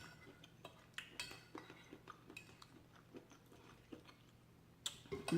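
Quiet eating sounds: cutlery clicking against a plate, with soft chewing between the clicks and a few sharper clinks.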